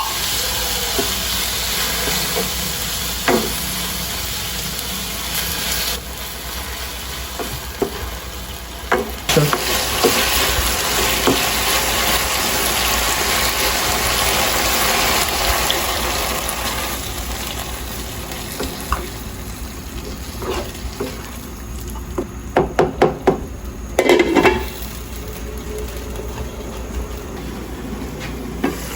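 Food sizzling in a frying pan while it is stirred, with a steady hiss and the occasional clink and knock of a utensil against the pan. Near the end comes a quick run of clicks, then a knock.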